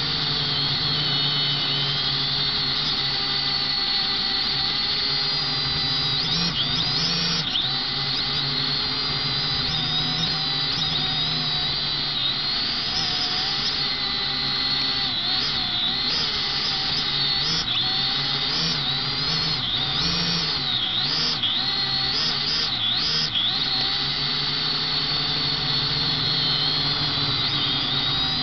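Potensic quadcopter's four electric motors and propellers whining in flight, heard close up through the drone's own onboard camera; the pitch wavers up and down as the throttle changes, most of all midway.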